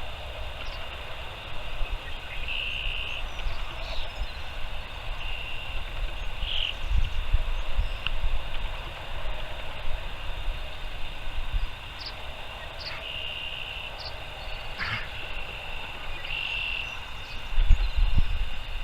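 Outdoor rural ambience: a steady high-pitched chorus of small calling animals, with short calls repeating over it. Underneath is a low rumble with a few heavier thumps, loudest near the end.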